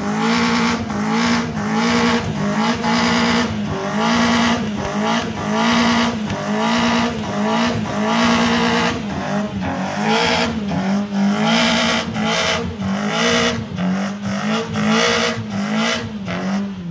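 Toyota Corolla's 2ZZ-GE 1.8-litre four-cylinder engine revved hard over and over. Each rev climbs to a high pitch, holds briefly and drops back, about once a second.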